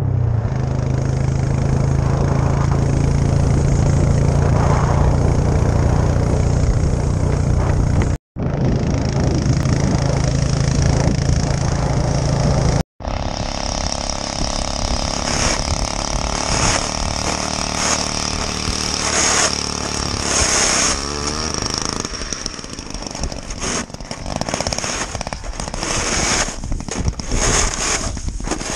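Small petrol engine of an ice auger running steadily while drilling through lake ice, with wind gusting on the microphone in the second half.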